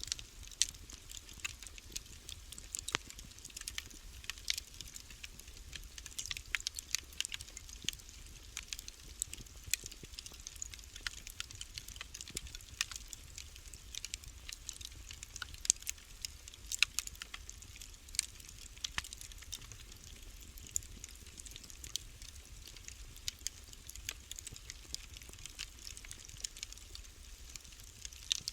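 Wood fire crackling in a fireplace: irregular sharp pops and snaps, several a second, over a faint low rumble.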